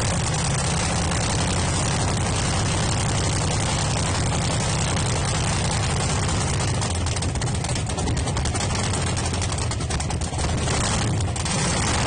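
Heavy engine of a drag-racing backhoe running steadily, without revving.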